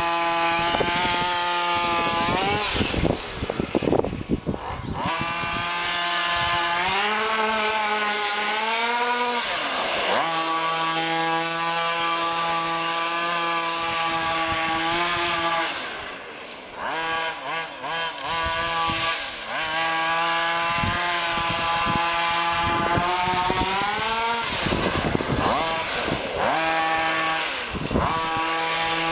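Radio-controlled buggy's small two-stroke engine running at high, buzzing revs that rise and fall with the throttle, dropping briefly twice. The clutch is slipping badly, so the engine revs without driving the car hard.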